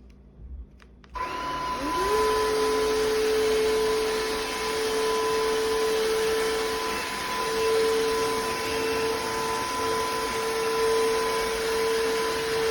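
Tineco iFLOOR cordless wet-dry floor vacuum switching on about a second in: its motor whine rises in pitch as it spins up, then it runs steadily with a loud rush of suction.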